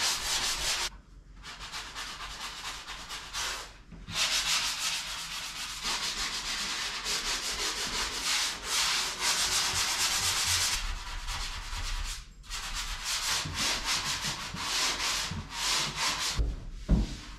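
Sanding block rubbed by hand over dried drywall joint compound: a rapid, scratchy back-and-forth rasp that stops briefly a few times between runs of strokes. A low thump near the end.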